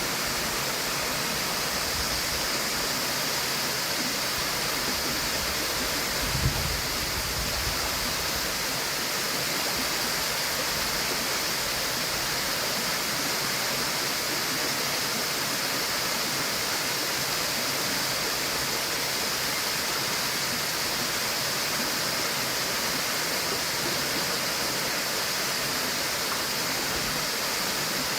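Waterfall: a steady rush of falling water, with a brief low thump about six seconds in.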